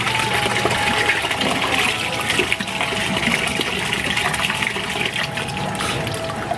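Tap water pouring into a steel bowl of small river fish and shrimp in a stainless-steel sink, splashing as hands rinse them, a steady gush with small splashes through it.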